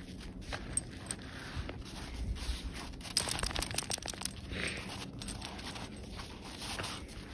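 Crusty snow crunching and scraping under a corgi as it slides, rolls on its back and scrambles, with a quick run of sharp crunches about three seconds in.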